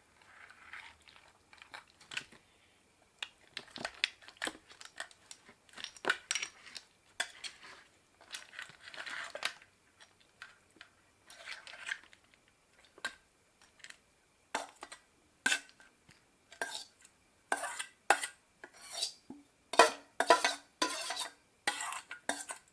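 Eating sounds: a utensil clicking and clinking against a dish again and again, with short bursts of chewing and crunching. The clicks come thicker and louder near the end.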